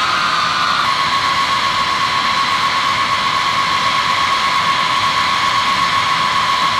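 B-52H Stratofortress's TF33 turbofan jet engines running, a steady roar with a high whine that dips slightly in pitch in the first second, then holds steady.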